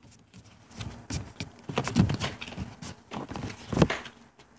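Scattered light clicks and taps at an uneven pace, a few to the second, like small objects being handled and set down on a table.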